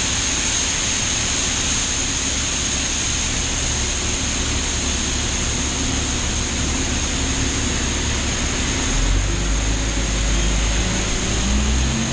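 Tractor engine running steadily under a heavy rush of mechanical noise, with a steady high whine. The engine note firms up about nine seconds in and rises near the end.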